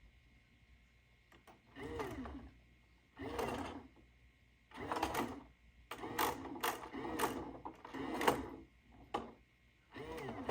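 Small electric motors of a toy claw crane machine whirring in short bursts of about a second each, the pitch bending up and down as the claw moves. A few sharp clicks come near the end.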